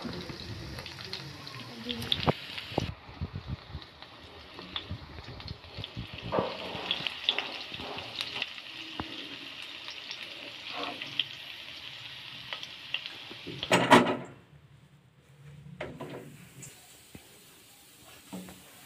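Paneer cubes sizzling in oil in a nonstick frying pan, with the spatula tapping and scraping the pan as the cubes are turned. About 14 seconds in there is a loud clatter, and then the sizzling stops.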